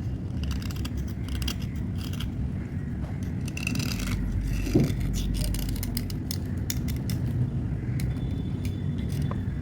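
Slate pencils clicking, clinking and scraping as they are handled and cleaned, in irregular short strokes over a steady low hum.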